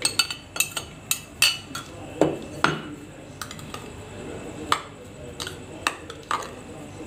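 Metal spoon clinking and scraping against a glass bowl and a small bowl while shredded cabbage and mayonnaise are scooped and stirred, in irregular clinks that come thicker in the first three seconds.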